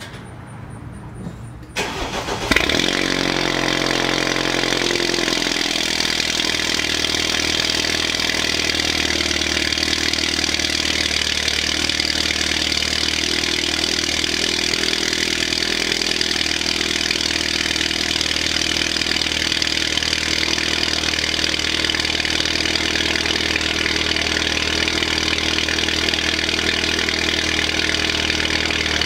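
Cold start of a 2015 BMW 228i's N20 2.0-litre turbocharged four-cylinder, running through a catless downpipe, a deleted resonator and an M235i M Performance exhaust: the starter turns briefly about two seconds in, the engine catches with a flare of revs, then settles into a steady, obnoxiously loud fast idle.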